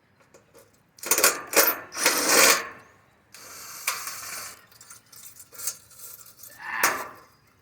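Sheet-metal air conditioner parts clattering and clanking as they are handled: a burst of rattling metal impacts about a second in, a steady scraping rasp in the middle, and another clank near the end.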